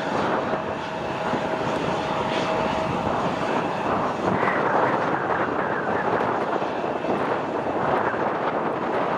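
Embraer 175 jet's twin turbofan engines running at taxi power, a steady jet noise with a faint steady whine in the first few seconds, under gusty wind on the microphone.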